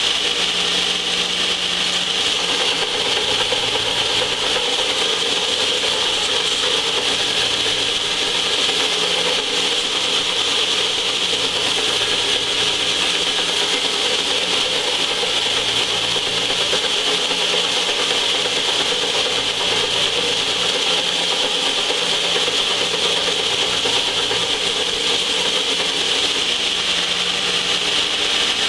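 A large heavy-duty belt sander with a 60-grit belt runs steadily while a warped cast-iron exhaust manifold is ground flat against it, giving a loud, even grinding hiss over a low motor hum.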